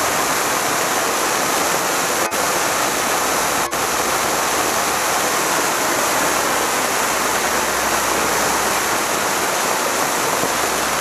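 Black Cat Silver Rain conic ground fountain firework burning with a loud, steady hiss as it sprays silver sparks, dropping out for an instant twice.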